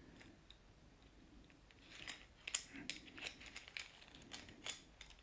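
Faint, quick clicks and rattles of a Chinese rings (Baguenaudier) puzzle as its loop is worked through the rings, starting about two seconds in.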